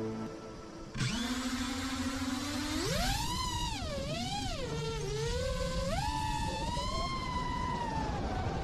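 DJI FPV quadcopter's brushless motors spinning Master Airscrew 5432 propellers. A low, steady hum starts about a second in. Near three seconds in it climbs into a high, insect-like whine as the drone lifts off, then swings up and down with the throttle before holding and slowly sagging.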